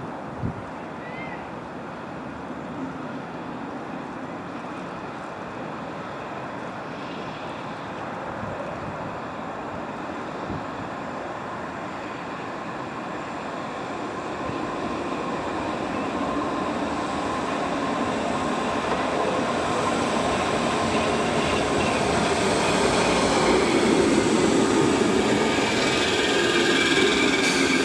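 Merseyrail electric train approaching, its rumble growing steadily louder over about twenty seconds, with a high whine coming in near the end.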